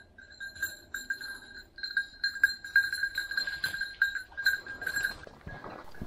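Bell on a bird dog's collar jingling in irregular clinks as the dog moves, stopping about five seconds in.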